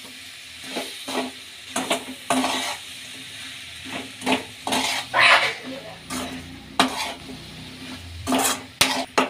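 A metal spatula scrapes and stirs fried potato slices and masala in a metal pan, in uneven strokes about once a second, over the sizzle of the oil in the pan.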